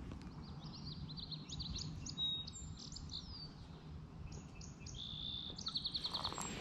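Several songbirds chirping: quick high chirps and short whistled notes, with a fast trill of repeated notes near the end, over a low steady background noise.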